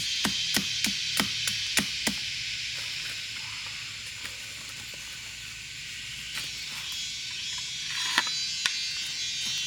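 A quick run of chopping strikes, about three a second, that stops about two seconds in, over a steady high hiss that carries on to the end.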